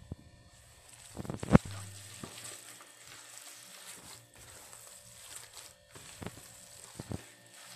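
Gloved hand kneading a wet minced-meat mixture in a plastic bowl: irregular squelching and rustling of the glove and meat, with a sharp knock against the bowl about a second and a half in.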